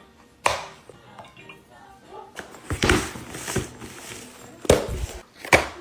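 A few sharp knocks and thuds, the loudest near the middle and close to the end, over faint indistinct voices or music.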